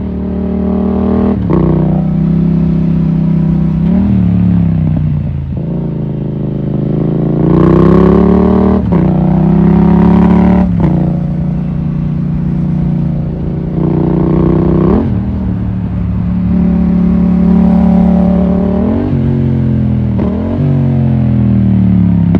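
Yamaha MT-07's parallel-twin engine pulling hard under a rider, its pitch climbing as the throttle is held open and dropping sharply several times as it shifts or eases off.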